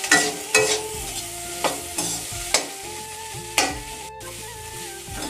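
Slotted metal spatula scraping and knocking against a kadhai as spiced potato-and-pea stuffing is stirred and fried, with a light sizzle underneath. There are about seven irregular scrapes.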